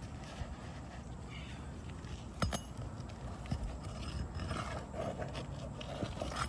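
Faint knocks and scrapes of roofing tools working under asphalt shingles to pull out their nails, with a sharp click about two and a half seconds in, over a steady low rumble.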